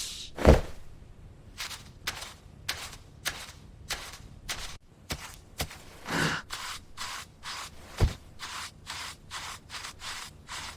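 Footstep sound effects: soft scuffing steps at an even pace of roughly one and a half to two a second, with a heavier thump about half a second in and another near eight seconds.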